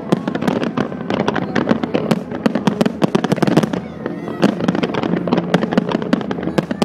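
Aerial fireworks shells bursting in a rapid, dense barrage of bangs and crackles, many a second, with a brief thinning about four seconds in before the barrage picks up again.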